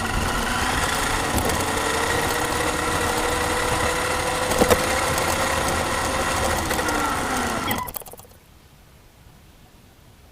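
Small electric motor of a radio-controlled vehicle whining steadily, with a sharp knock about halfway. Its pitch drops slightly just before it cuts off about eight seconds in, leaving only a faint hiss.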